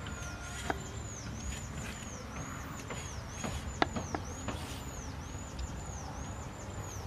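Meat cleaver chopping chicken on a wooden cutting board: a few sharp chops, the loudest about halfway through. Behind it, a high call repeats about once a second.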